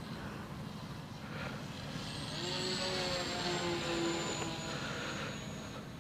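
ParkZone Mosquito RC plane's electric motors and propellers whining as it makes a pass, growing louder about two seconds in and then falling slightly in pitch as it goes by, over wind rumble on the microphone.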